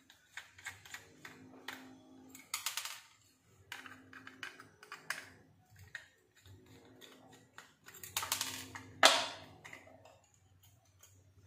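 Small Phillips screwdriver ticking and scraping as it backs tiny screws out of an aluminium LED board in a plastic tube-bulb housing. Scattered light clicks of handling, louder around eight to nine seconds in, with one sharp click.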